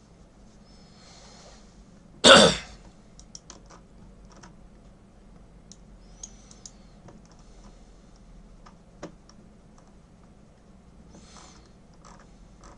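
A man coughs once, loud and short, about two seconds in. Scattered light computer keyboard and mouse clicks follow.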